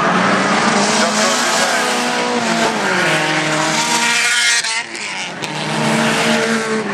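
Renault Mégane Coupé race car's engine running hard at high revs, its pitch climbing and dropping repeatedly as it accelerates and lifts. It briefly drops in level about four and a half seconds in, then climbs again.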